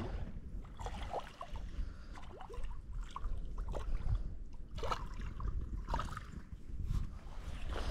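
Wind rumbling on the microphone, with faint trickling and gurgling water and small irregular sounds from the water's edge.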